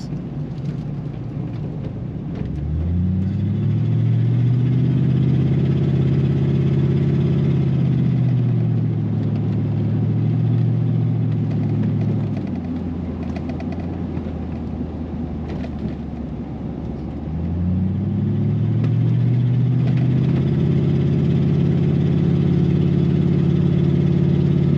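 A 2000 Chevrolet Silverado pickup's engine heard from inside the cab over steady road noise. It rises in pitch as the truck accelerates about three seconds in and holds there, eases off about halfway through, then accelerates again about three-quarters of the way through.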